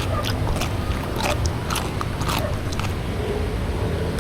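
Close-miked eating: a person chewing grilled food with the mouth open, giving short, irregular wet clicks several times a second.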